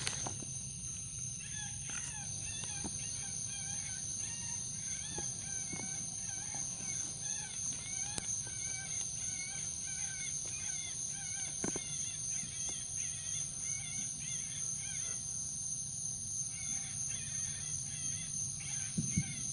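Long run of short, bird-like chirps repeating a few times a second, pausing briefly about three quarters of the way through before starting again. A couple of low knocks come near the end.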